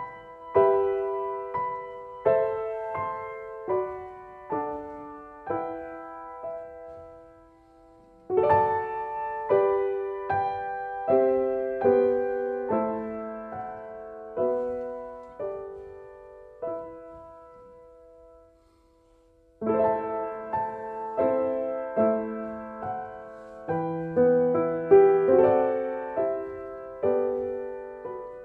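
Slow solo piano music: struck chords and single notes left to ring, with the playing dying away twice before the next phrase begins.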